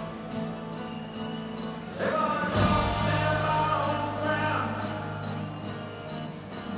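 Live rock band playing through an arena PA, heard from the audience, with bass guitar and held chords; a new chord and bass note come in about two seconds in.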